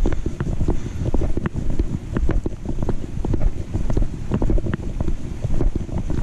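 Low rumbling wind buffeting on the microphone of a GoPro clipped to a backpack chest strap during walking, with frequent irregular knocks and rubbing clicks from the camera mount jolting with each step.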